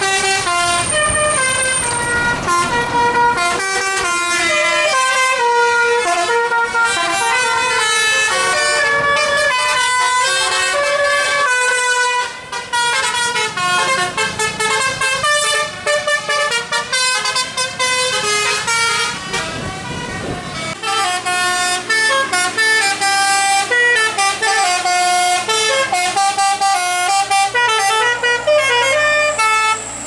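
Tour bus telolet musical air horns (Basuri type) playing a melody, note after note in quick steps. About two-thirds in the tune changes and a low steady hum joins beneath.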